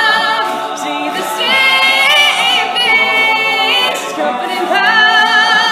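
All-male a cappella group singing in close harmony without instruments, holding long chords with a wavering vibrato on the top voice.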